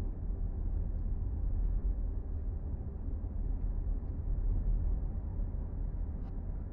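Steady low rumble of a vehicle driving on a snow-packed road, heard from inside the cabin: engine and tyre noise.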